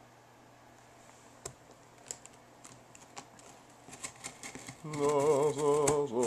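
Scattered light clicks and scrapes of a box cutter working on a cardboard box and its packing tape. A louder, drawn-out wavering male voice comes in about five seconds in.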